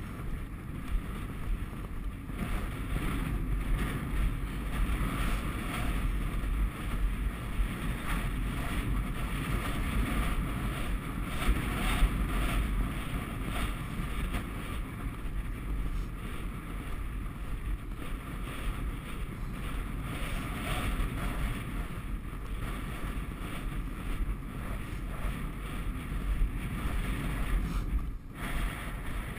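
Strong wind buffeting the microphone, a dense low rumble with hiss that swells and eases in gusts, from 27 mph gusts and the gallop, briefly dropping near the end.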